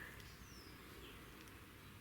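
Near silence: quiet outdoor background with a few faint, short bird chirps high in pitch.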